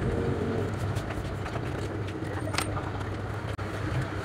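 Small clicks and taps of a metal screwdriver working at a small brushed DC motor of an RC car, one sharper click about two and a half seconds in, over a steady low hum.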